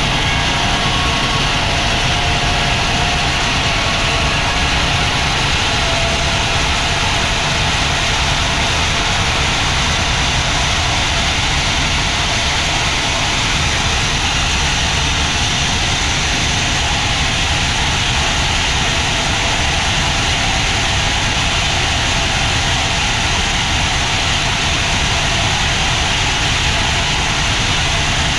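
Sawmill machinery running steadily: a low engine drone under an even hiss.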